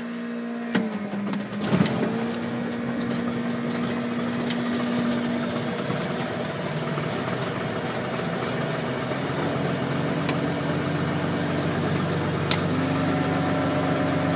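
Light aircraft piston engine with electronic ignition cold-started at about −8 °C: the starter cranks briefly and the engine catches on the third blade about two seconds in. It then chugs along roughly at a cold idle, settling into a steady run as it catches its breath, with a steady whine over it.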